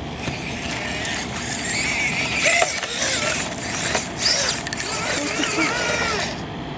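Axial SCX24 micro RC crawler's small electric motor and gears whining, rising and falling in pitch with the throttle, with light clicks and scrapes from the rocks.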